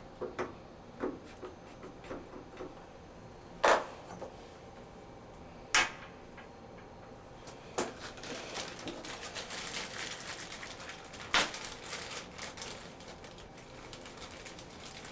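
Scattered light clicks and taps, with sharp knocks about four, six and eleven seconds in, and a dense run of small clicks between about eight and thirteen seconds.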